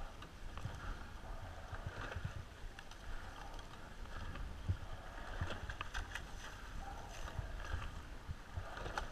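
Rowing shell paddling light on choppy water: water splashing and rushing past the hull as the blades go in and out every couple of seconds, with sharp clicks and knocks from the oars in their gates and wind rumbling on the microphone.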